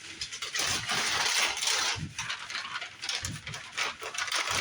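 Gift packaging being torn and rustled open by hand, in several loud ripping, crinkling bursts with a few soft knocks.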